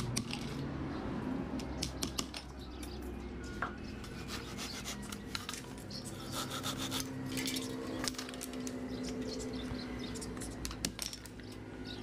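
Hand tools working a small wooden frame: irregular light hammer taps on slats and nails, and a handsaw rasping through a wooden slat partway through. A low steady hum runs underneath.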